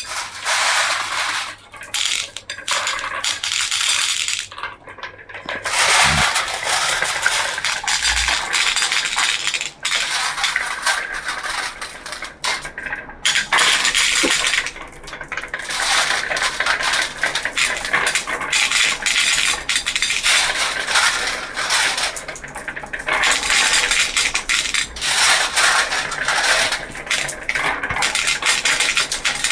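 Many marbles rolling and clattering down a toy marble run track, a dense, continuous rattle of small hard clicks with a few brief lulls.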